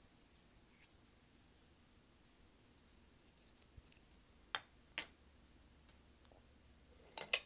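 Small beach trinkets (seashells, stones and glass figurines) being tapped and handled by hand for ASMR: faint light ticks, then two sharp clicks about half a second apart near the middle, and a quick cluster of clicks near the end.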